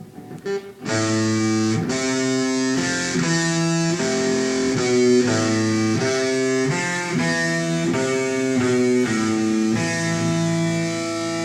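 Electric guitar playing a riff of single low notes on the A and D strings, moving to a new note about every half second. It starts about a second in.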